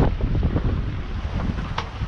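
Wind buffeting the microphone, a steady low rumble, with a knock at the very start and a faint click near the end.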